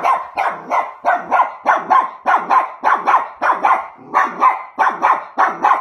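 Young dog barking in a fast, steady string, about three barks a second: reactive barking at unfamiliar dogs behind a gate.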